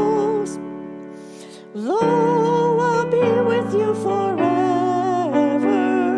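A hymn sung over held keyboard chords. One sung line ends on a long note that fades away about a second in, and the next line begins with an upward slide about two seconds in.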